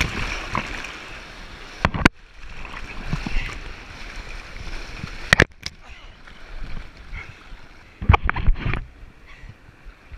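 Rushing white water churning around a kayak running rapids, broken by sharp splashes and knocks of paddle strokes and water slapping the boat, about two seconds in, near halfway, and a cluster of them near the end. The rushing thins out in the second half as the boat reaches calmer water.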